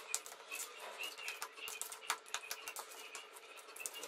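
Faint wet squishing and clicking of chicken wings being mixed by hand in a thick yogurt marinade in a plastic bowl, with small high chirps scattered behind it.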